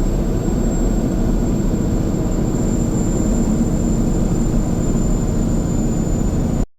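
Semi truck's diesel engine with its engine brake (jake brake) on, a steady low rumble heard from inside the cab as the truck slows on a hill; it cuts off suddenly near the end.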